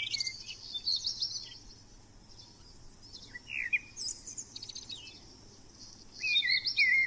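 Songbirds singing: short phrases of chirps and trills every couple of seconds, loudest near the start and again near the end.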